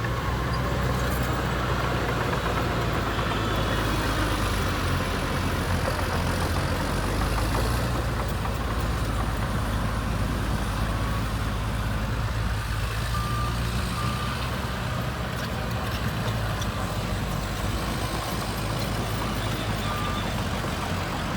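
Heavy diesel engine of earth-moving machinery running steadily, with a few short high beeps over it.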